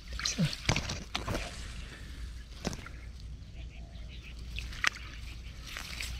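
Shallow lake water sloshing, with a few small sharp splashes scattered through, as released tilapia are stirred in the water and start to swim off.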